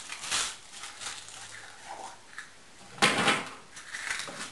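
Close handling noise of small parts being worked by hand: irregular rustles and light knocks, with a louder scraping clatter about three seconds in.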